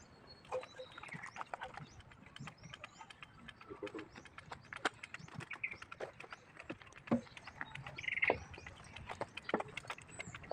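Scattered light clicks and knocks of tools and metal parts being handled during work on a hydraulic travel gear, with faint bird chirps now and then.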